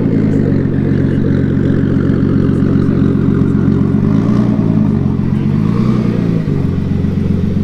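A car engine idling loudly with a steady exhaust note. The throttle is blipped lightly twice about halfway through, and the revs rise and settle each time.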